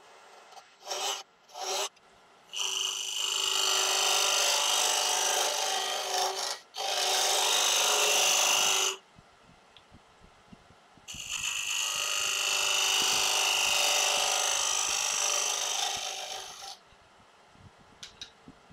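A 1-inch round-nose scraper cutting the inside of a wooden box blank turning on a lathe: a dry scraping hiss in three long passes, after two brief touches at the start, with a pause of about two seconds between the second and third passes.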